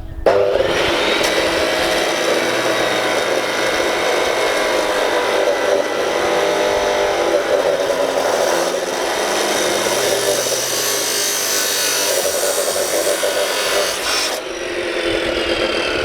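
A power cutting tool slicing through steel Unistrut channel, a loud continuous grinding screech. About 14 seconds in the cut ends and the tool winds down with a falling whine.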